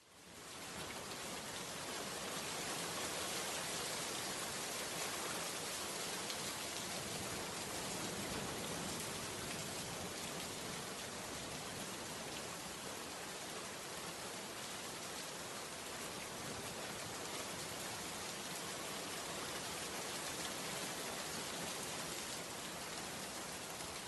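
Steady, even hiss like heavy rain, fading in over the first second.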